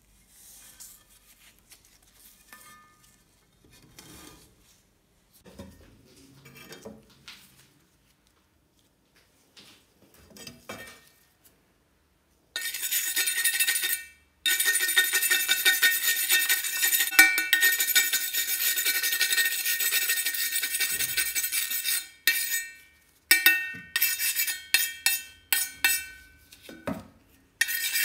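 Quiet handling of a rusty trowel at first, then a steel wire brush scrubbing rust off the trowel's steel blade: a loud continuous scraping for about ten seconds, with the blade ringing, followed by a series of short brisk strokes near the end.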